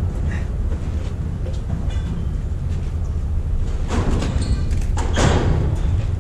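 Squash rally: a squash ball struck by rackets and hitting the court walls, a few sharp knocks in the second half, over a steady low rumble.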